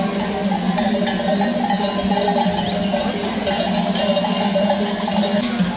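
Many bells worn by a passing flock of sheep and goats, clanking and ringing together in a continuous jumble as the animals walk.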